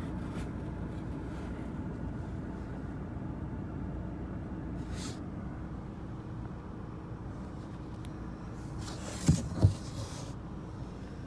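Steady low rumble of an idling car engine. About nine seconds in come two short, low thumps in quick succession.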